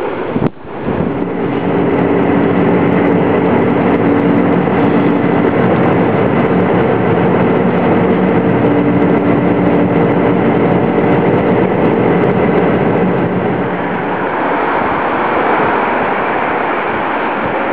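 A vessel's engine droning steadily under a dense rush of noise, with several held humming tones. About fourteen seconds in it gives way to a hissier rushing noise with less hum.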